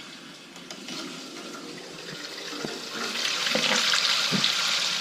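Water hissing into a newly installed toilet tank through its fill valve as the supply is turned on, growing louder about three seconds in.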